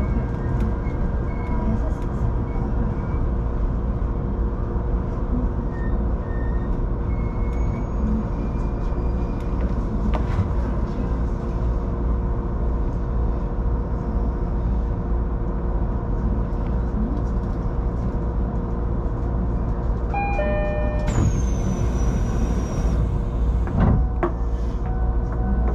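Inside the driver's cab of a Shinano Railway SR1 series electric train: a steady hum and low rumble of the train. About twenty seconds in, a short electronic chime sounds, followed by about two seconds of hissing air release and then a single knock.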